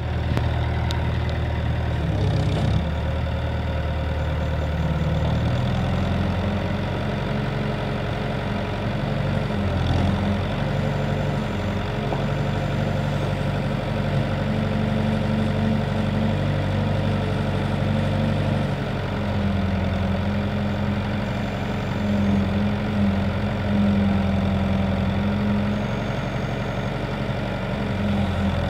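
Nuffield tractor engine running, its speed rising and falling in steps as it drives the hydraulic backhoe digging and loading.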